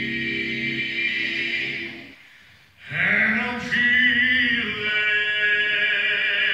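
Male vocal quartet singing a cappella in close harmony: a held chord ends about two seconds in, and after a brief pause the group comes in on a new held chord.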